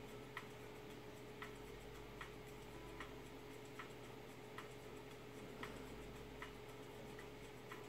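Faint, regular ticking, a little more than one tick a second, over a steady low hum.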